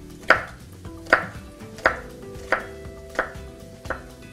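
Chef's knife chopping on a wooden cutting board: six slow, regular strokes, one about every 0.7 seconds.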